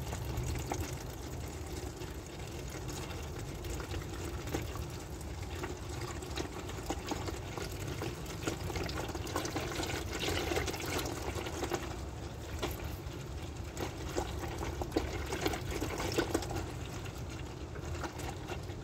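Used engine oil running in a steady stream from the sump drain hole and splashing into a drain pan, with a continuous pouring, spattering sound.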